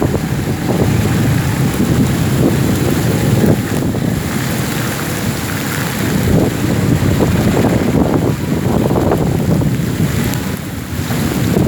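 Heavy rain with wind buffeting the microphone: a loud, continuous rushing noise with irregular low gusts.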